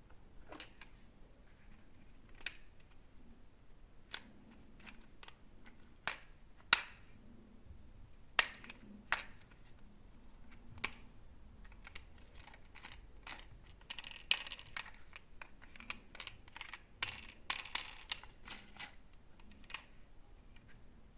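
Toy minicars clacking and rattling on a slope: scattered sharp clicks, with a busier run of rattling a little past the middle.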